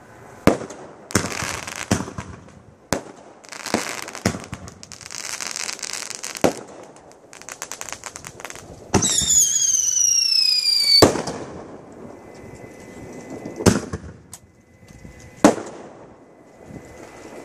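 Consumer fireworks fired from a mortar rack: a string of sharp bangs at uneven intervals, with a short stretch of crackling. About nine seconds in, a whistling firework lets out a loud whistle that falls slowly in pitch for two seconds and ends in a bang.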